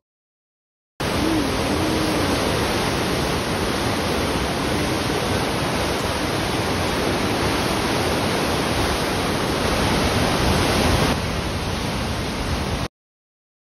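Waikato River white water rushing through the Huka Falls channel: a loud, steady rush of water that starts suddenly about a second in and cuts off just before the end.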